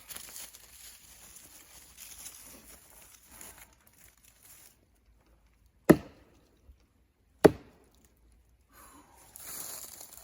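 Two sharp axe strikes into wood, about a second and a half apart near the middle, with faint rustling around them.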